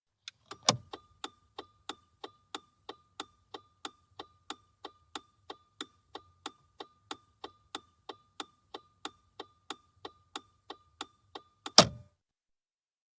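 Car turn-signal stalk clicked on, then the indicator relay ticking evenly at about three ticks a second, with a faint low hum underneath; near the end the stalk is clicked off loudly and the ticking stops.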